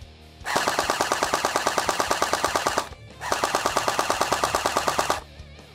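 Jinming J12 AK-74U gel blaster with a nylon gearbox firing on full auto: two bursts of about two seconds each, a rapid, even clatter of the electric gearbox cycling, with the blowback charging handle moving back and forth.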